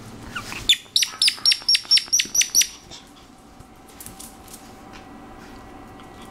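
A rubber squeaky toy squeezed by hand in quick succession: about nine sharp, high squeaks at roughly four a second, each dropping in pitch, stopping about three seconds in.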